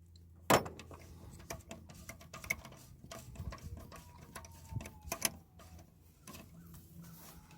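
Hand ratchet clicking in quick, uneven runs as a 10 mm bolt on an extended socket is loosened, with a sharper knock about half a second in.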